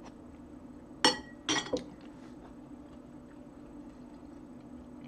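Spoon clinking against a soup dish: one sharp clink about a second in, then two more about half a second later.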